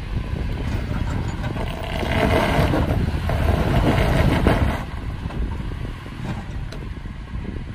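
2018 Toyota 4Runner TRD Off-Road's 4.0-litre V6 working as the SUV crawls up a rock ledge, louder for about three seconds in the middle, with wind buffeting the microphone.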